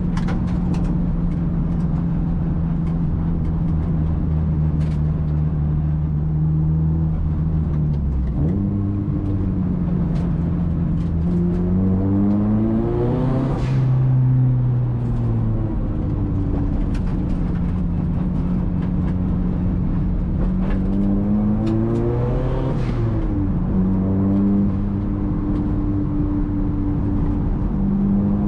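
Nissan SR20DET turbocharged 2.0-litre four-cylinder engine with a big turbo, heard from inside the cabin while driving. It holds steady revs at first, then climbs and falls back twice, about halfway through and again near the end.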